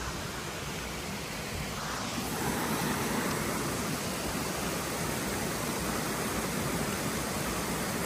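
Waterfall: falling water rushing in a steady, even noise.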